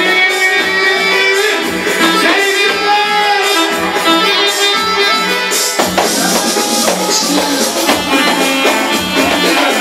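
Live Iraqi party band playing an instrumental passage with a steady beat and a melody line over it. The music moves into a new phrase about six seconds in.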